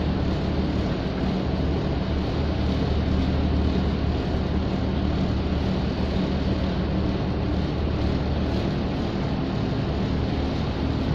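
A ship's engine running steadily under way, heard from inside the wheelhouse as an even low drone with a wash of noise over it.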